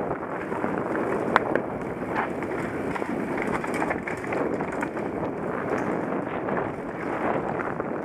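Mountain bike rolling fast down a dirt singletrack: wind buffeting the camera's microphone over tyre rumble and the rattle of the bike on rough ground, with a sharp knock about a second and a half in.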